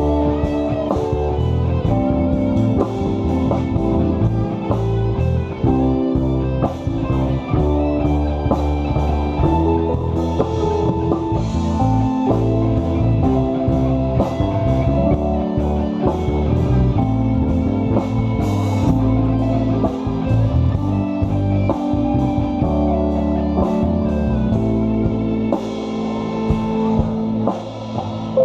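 Live rock-blues band playing an instrumental break: guitar to the fore over bass, drum kit and keyboards, with no singing.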